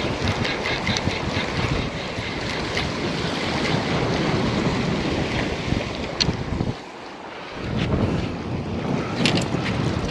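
Wind buffeting the microphone over waves washing against jetty rocks, easing for a moment about seven seconds in. Light clicks from a spinning reel being cranked come through, a run of faint ticks near the start and a few sharper clicks later.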